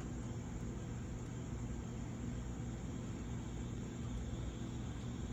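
Steady low rumble and hum with an even hiss over it, continuous and without distinct events.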